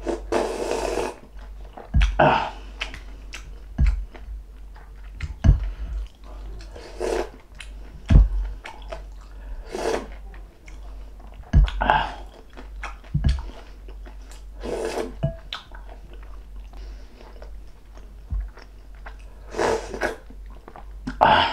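Close-miked eating: a person sipping broth from a wooden spoon and chewing, with a short slurp every couple of seconds and small knocks in between.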